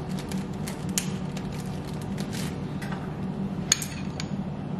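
Kitchen handling sounds: a plastic bag rustling as a lemon half is put away, then a metal spoon clinking in a glass bowl of sauce, with one sharp clink near the end. A steady low hum runs underneath.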